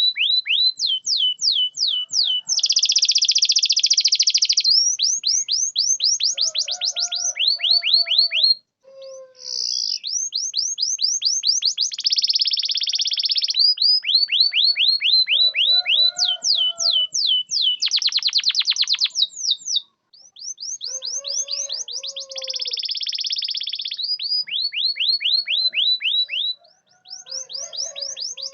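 Domestic canary singing: runs of repeated down-sweeping whistled notes, about four a second, alternating with fast buzzing rolls, broken by a few brief pauses. It is a lure song of the kind played to set off a quiet canary.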